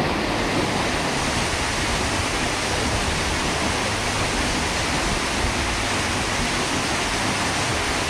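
Waterfall pouring into its pool: a loud, steady rush of falling water that does not let up.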